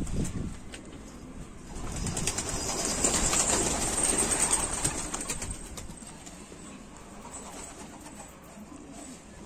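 A flock of domestic pigeons at the loft, with a loud rush of many flapping wings building from about two seconds in and easing off after about five seconds.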